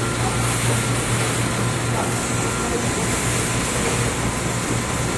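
XGJ automatic colour ice lolly production line running: a steady machine hum with a constant hiss over it.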